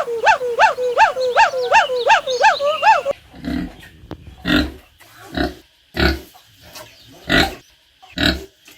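A rapid run of short, high, pitched animal calls, about three or four a second. It is cut off about three seconds in by a pig grunting in separate low grunts roughly once a second.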